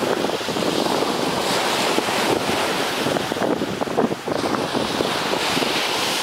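Wind buffeting the microphone over the rush of surf breaking on a sandy beach, a steady rumbling noise that swells and dips.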